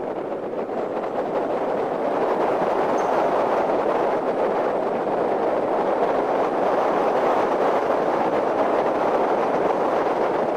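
Hyundai Genesis Coupe on the move: a steady roar of road and wind noise, building over the first couple of seconds and then holding level.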